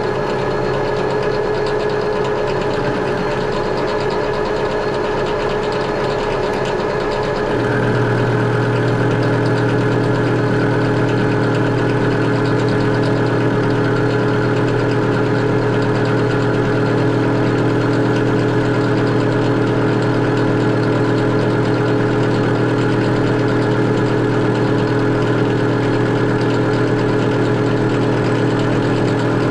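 Metal lathe running with a four-jaw chuck spinning a square bar, a steady hum from the motor and gearing. About seven and a half seconds in, the pitch of the hum shifts and it gets slightly louder.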